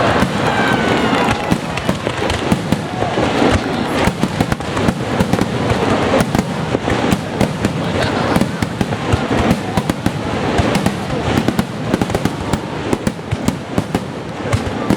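Aerial fireworks display: a dense, continuous barrage of bursting shells and crackling bangs, with a few whistling streaks about a second in.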